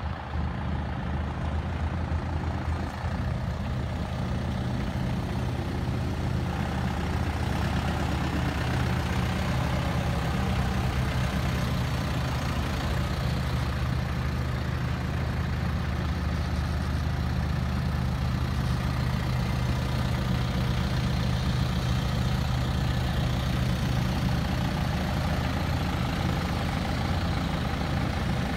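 Hyundai County minibus engine running steadily at low revs as the bus moves slowly.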